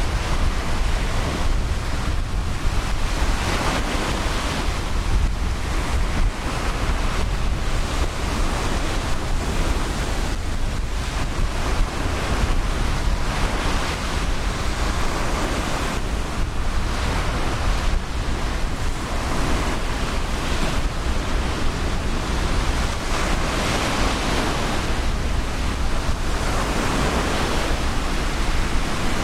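Ocean surf washing onto a beach, a continuous noisy wash that swells and eases every several seconds as waves break. Wind buffets the microphone with a low rumble underneath.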